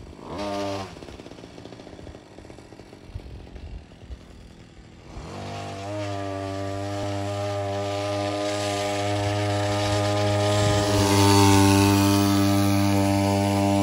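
Small 42cc engine on a homemade stand-up motor scooter. It gives a short rev just after the start and then drops to a faint low running for a few seconds. About five seconds in it revs up and holds a steady high pitch, growing louder as the scooter is ridden.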